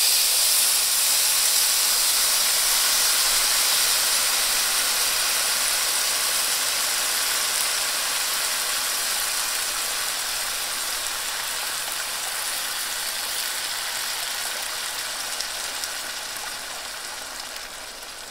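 Strained tomato, onion and garlic purée poured onto rice toasted in hot oil, sizzling and hissing loudly in the pan. The sizzle starts suddenly and slowly dies down.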